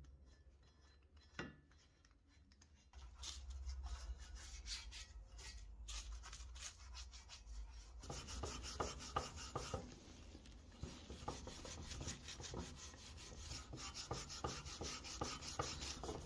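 Rapid back-and-forth scrubbing of softened paint and gel paint stripper on the cast-iron base of an early-1900s Alexanderwerk doctor's scale, starting about three seconds in, after a single light tap.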